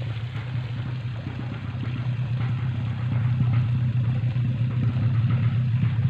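Steady low drone of an engine running, growing slightly louder about three seconds in.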